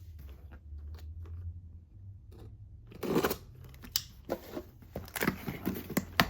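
Package being opened by hand: scattered rustling and snipping of packaging with sharp clicks, the loudest rustle about three seconds in.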